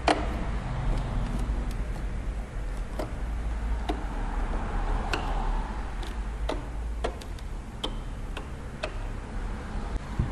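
Light, irregular clicks and taps of a security screwdriver working the screw in a PlayStation 3's plastic casing, about one or two a second, the first the loudest, over a low steady hum.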